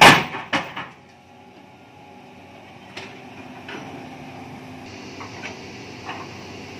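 Cat 320D excavator working beside a self-loader truck: one loud knock at the start and two smaller ones within the first second, then the excavator's engine running steadily with a few light knocks.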